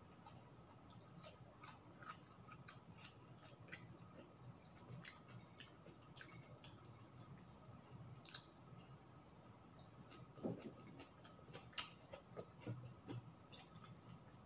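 Faint chewing and small mouth clicks and smacks of someone eating rice and blanched greens by hand. The clicks are scattered, with a few louder ones about two-thirds of the way through.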